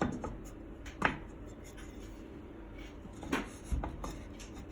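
Wooden rack pieces being fitted together by hand, with a few sharp wooden knocks and clicks: one about a second in and a couple more around three and a half seconds in.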